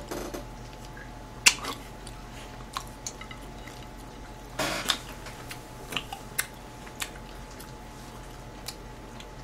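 A person chewing a mouthful of beef chop steak: soft wet mouth clicks scattered through, the sharpest about a second and a half in, and a short louder noise about five seconds in.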